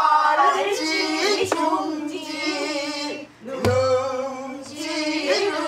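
A woman singing pansori in a full, bending sung line, with a couple of sharp buk barrel-drum strokes about a second and a half in and again near the middle.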